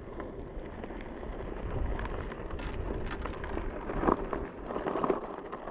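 Wind buffeting a helmet-mounted action camera's microphone while riding an electric board over dirt, with a steady low rumble and a few light knocks about halfway through.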